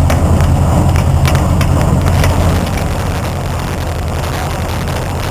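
Tractor engine running steadily with a low hum. It eases off slightly after about two and a half seconds.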